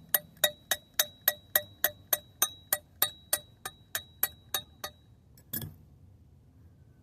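Rapid metal-on-metal tapping on a freshly welded steel piece, about three to four sharp strikes a second, each with a ringing note, knocking the slag off the weld. The tapping stops about five seconds in, and one last heavier knock follows.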